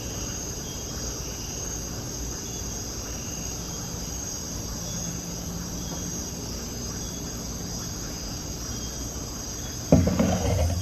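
A steady chorus of night insects such as crickets, a continuous high trill that keeps an even level. Near the end comes a louder clunk and rustle as an aluminium can is set down on a wooden table.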